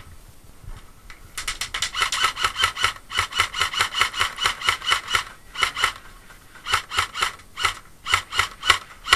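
Airsoft rifle firing on full auto: a rapid, even rattle of shots starting about a second and a half in and lasting about four seconds, followed by several shorter bursts.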